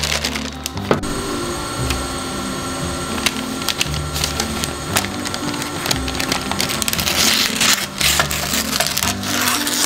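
Scissors cutting through a sheet of parchment baking paper: sharp snips and crackly paper rustling, busiest near the end, over background music with a steady bass line.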